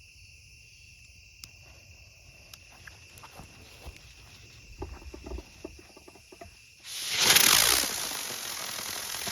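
Crickets chirping steadily, with a few faint clicks. About seven seconds in, a consumer aerial spinner firework ignites with a sudden loud rushing hiss, its pitch sweeping as it spins up and lifts off.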